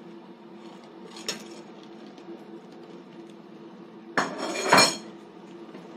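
Metal cutlery clinking against tableware: one light clink about a second in, then a louder clatter of clinks and scraping about four seconds in. A faint steady hum runs underneath.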